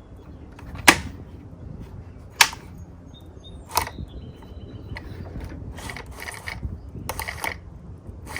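Sharp metal clicks and knocks, three of them about a second and a half apart, then a run of small rattles: the new saw chain and bar of a Milwaukee M18 battery chainsaw being handled, fitted and tensioned.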